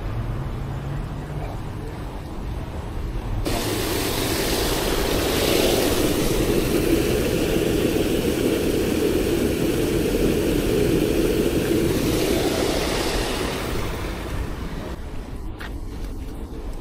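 Street traffic: a passing vehicle's rushing noise comes in a few seconds in, swells to its loudest mid-way and fades again. A few faint clicks near the end.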